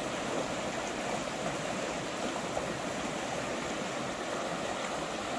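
Shallow rapids on the Cuyahoga River rushing steadily over rocks.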